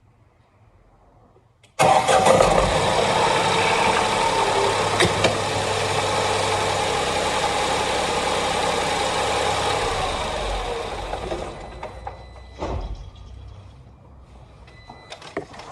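Tata Nexon's 1.2-litre turbo-petrol three-cylinder engine cranking and catching about two seconds in, heard close up with the bonnet open, then running at a raised cold-start idle. The sound grows fainter after about ten seconds.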